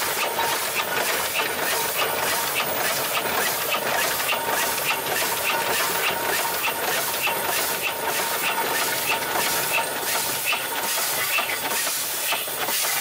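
The Buffalo Springfield 8-ton steam roller's steam engine running: a steady hiss of steam with a regular beat, roughly two a second.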